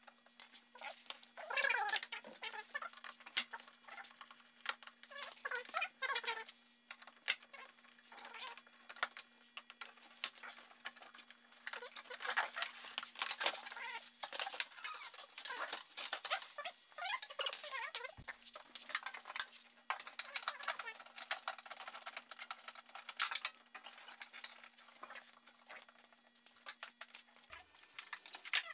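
Quiet, busy clicking, tapping and rattling of plastic body-kit parts and hand tools as a car's front bumper and fender trim are fitted by hand, with short squeaks now and then. A faint steady hum drops out for a few seconds in the middle.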